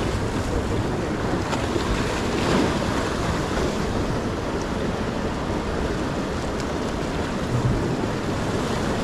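Sea surf washing and breaking against the boulders of a rock jetty, a steady rushing noise, with wind buffeting the microphone.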